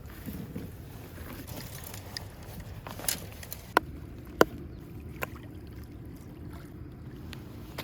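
Steady noise of moving river water, with a handful of short sharp knocks or clicks in the middle.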